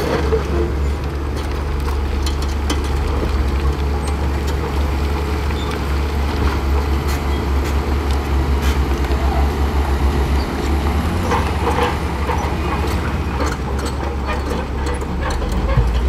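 Shantui crawler bulldozer's diesel engine running steadily under load as it pushes sand, with scattered clanks from its steel tracks.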